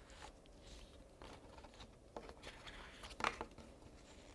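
Faint rustling and scraping of a sheet of paper being folded down and creased with a plastic ruler, with a slightly louder scrape about three seconds in.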